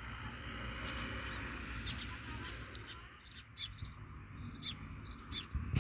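Masala paste frying in a black iron tava over a wood fire: a soft sizzle, thinning out about halfway, with the metal spatula scraping and tapping on the pan, and a few bird chirps.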